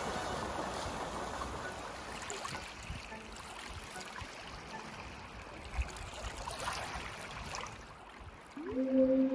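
Shallow water washing and lapping over sand, a steady watery hiss that slowly fades. About eight and a half seconds in, slow ambient music with long held notes comes in.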